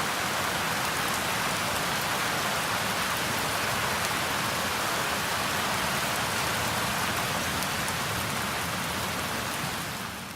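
Steady tropical rain hissing, with fine drop patter and ocean waves breaking close by as a low rumble underneath. It fades out near the end.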